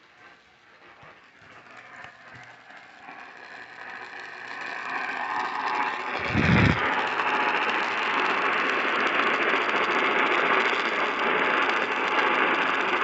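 Radio static: a hiss swelling from faint to loud over the first six seconds, with a low thump about six and a half seconds in, then steady static with faint steady tones running through it.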